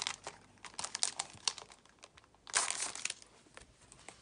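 Clear plastic sleeve crinkling as a stack of postcards is slid out of it by hand: scattered crackles, with one longer rustle about two and a half seconds in.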